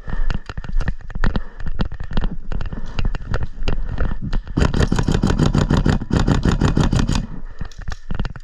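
Airsoft gun firing: scattered single shots and knocks, then a sustained rapid-fire burst of about two and a half seconds starting a little past halfway.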